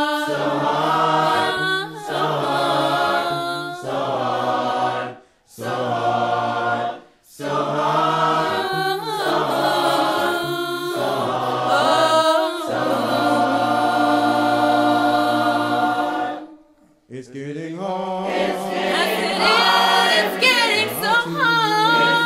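Church choir singing a gospel song a cappella, voices only, in sustained phrases with a few brief breaths between them. Around the middle the choir holds one chord for about four seconds.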